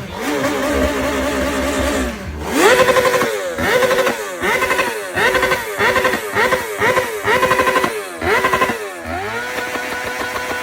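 Honda motorcycle with a Triplo R aftermarket exhaust running steadily, then revved in a rapid series of short throttle blips, each rising and dropping back. Near the end it rises to a steady, higher held rev.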